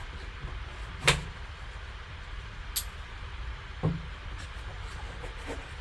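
A few sharp plastic clicks and a soft knock from a box and a graded-card slab being handled, over a low steady hum.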